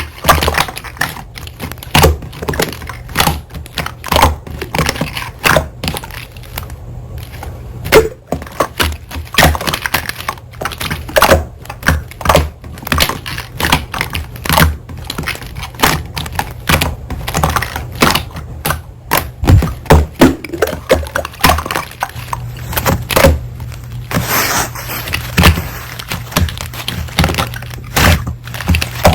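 Slime being squeezed and pressed by hand, giving a fast, irregular run of sticky clicks and pops over a steady low hum.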